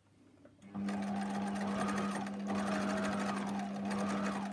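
Domestic electric sewing machine starting up about a second in and running steadily at speed, its needle stitching a straight seam along the edge of a patch pocket; it stops right at the end.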